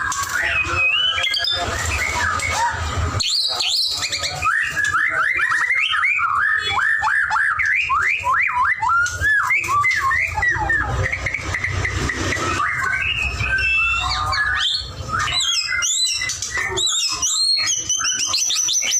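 White-rumped shama (murai batu) in full song: a long, unbroken run of quick whistled phrases, each note sweeping up and down in pitch and changing from phrase to phrase.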